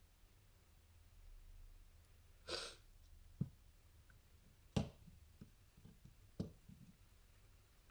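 Small clicks and knocks of plastic instrument-cluster parts being handled and fitted, three sharp ones about a second and a half apart with fainter ticks between, after a short breathy hiss.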